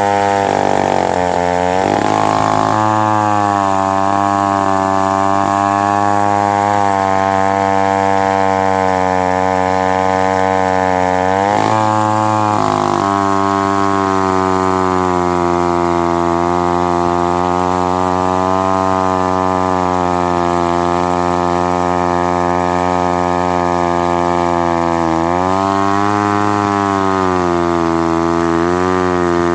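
Mid-1950s Lombard 35 gear-drive two-stroke chainsaw running hard while cutting seasoned maple. Its engine note holds mostly steady but dips and recovers in pitch a few times: about a second in, around twelve seconds in, and again near the end.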